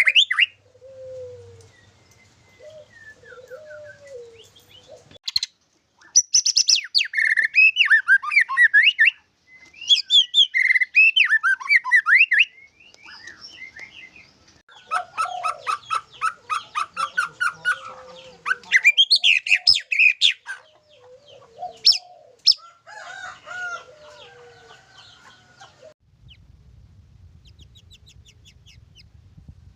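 White-rumped shama (murai batu) singing in bursts of varied whistled and chattering phrases, one of them a fast run of repeated notes, with short pauses between. The song is full of 'isian', the phrases the bird has copied from other birds.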